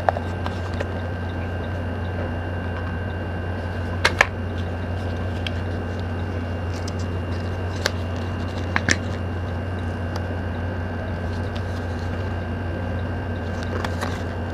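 A small paperboard phone-accessory box being handled and opened by hand, giving a few light clicks and taps: a pair about four seconds in and another pair near nine seconds. A steady low hum runs underneath throughout.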